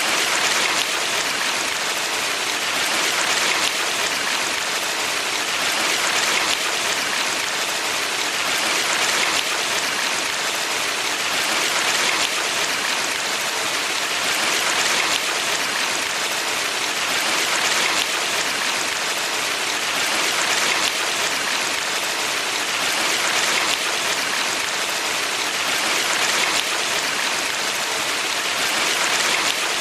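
Mountain stream water rushing in a steady hiss, swelling gently about every three seconds.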